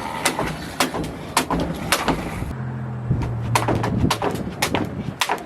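A jump rope slapping the ground on each turn, with sharp, evenly spaced slaps about twice a second.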